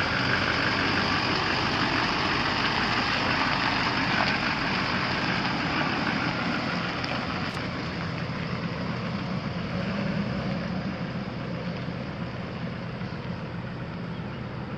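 2007 Chevrolet Silverado 3500HD's 6.6-litre Duramax V8 diesel idling steadily, growing gradually quieter over the last several seconds.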